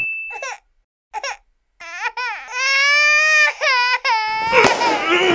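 An adult man's voice imitating a crying baby. Short whimpers come first, then a long wailing cry from about two seconds in, which turns louder and sobbing near the end.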